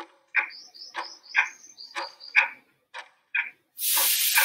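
Countdown timer sound effect: clock ticks in tick-tock pairs, one pair a second. A run of short high chirps comes about half a second in, and a loud hiss lasts about a second near the end.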